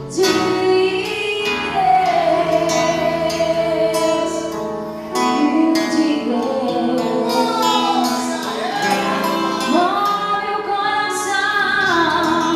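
Live gospel worship music: a woman singing long, held notes that glide between pitches over a church band.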